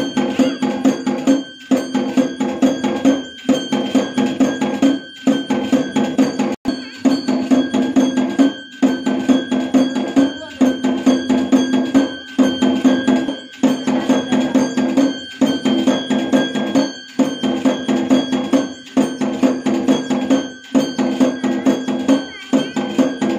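Temple bells clanging over rapid drum beats in a steady repeating rhythm, with a short break about every two seconds, as at a Hindu temple puja.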